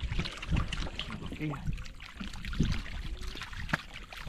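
Shallow water splashing and trickling, with scattered small knocks and clicks.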